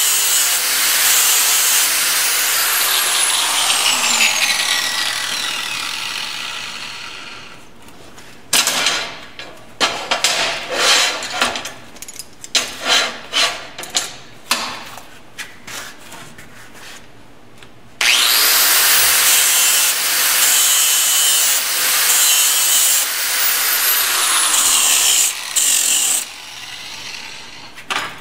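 A hand grinder buffs the mill scale off a steel test plate, then is switched off and winds down with a falling whine. After that come several seconds of metal knocks and clanks as the plates are handled. Near the middle the grinder starts up sharply, grinds for several seconds, winds down again, and more clanks follow.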